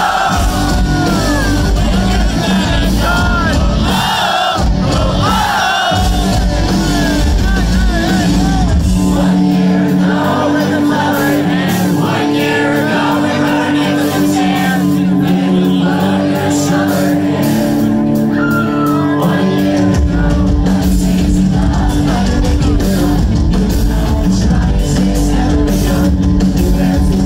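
Pop-punk band playing live: electric guitars, bass guitar, drums and lead vocals, with the crowd shouting and singing along. The bass and kick drum drop out about nine seconds in, and the full band comes back in about twenty seconds in.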